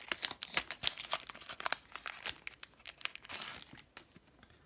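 Wrapper of a Tim Hortons NHL trading card pack crinkling and tearing as it is ripped open by hand: a fast run of sharp crackles that dies away about three and a half seconds in.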